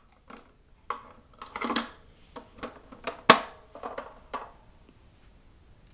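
Plastic toys being handled and knocked about on a carpet: a series of irregular clicks and knocks, the loudest about three seconds in.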